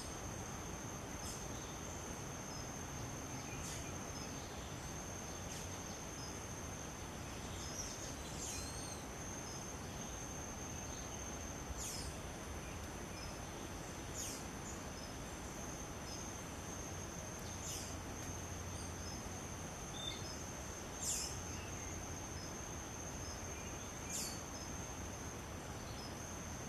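Steady, high-pitched insect trill, with short, high bird chirps every few seconds over a continuous background hiss.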